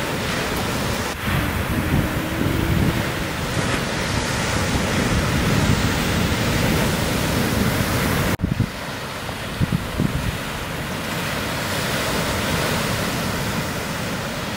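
Shore-break surf crashing and washing through whitewater, a steady rushing noise, with wind buffeting the microphone. The sound cuts out for an instant a little past halfway, then carries on.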